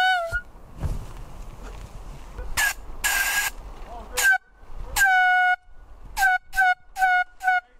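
Handheld air horn blown as a bear deterrent, in a series of blasts at one steady pitch. There is a hissing sputter about three seconds in, a longer blast about five seconds in, and a quick run of short toots near the end.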